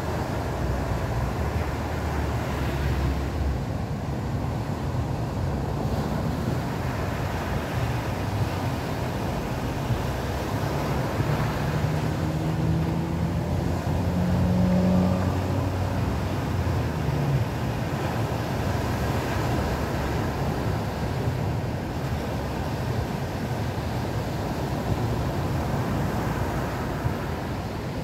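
Atlantic surf breaking and washing up the beach, a steady rushing noise with a low rumble, mixed with wind buffeting the microphone. About halfway through, a few faint low tones step upward in pitch and the sound swells a little.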